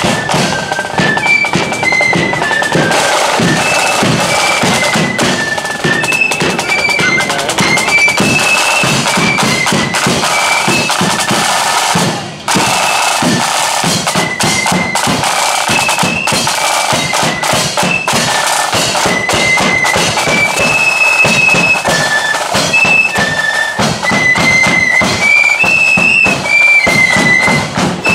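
Marching flute band playing a tune: high flutes carry the melody over side drums and a bass drum beat. The music dips briefly about twelve seconds in.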